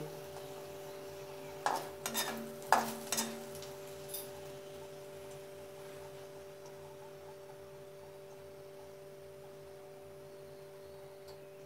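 A paratha frying in a little oil in a kadai over a medium flame, giving a low, steady sizzle. A few sharp clicks come about two seconds in.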